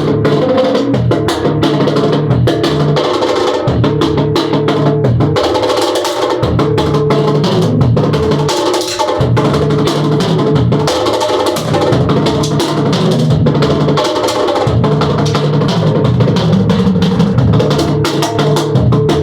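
Live funk band music with a drum kit playing a steady beat, played at a sound check.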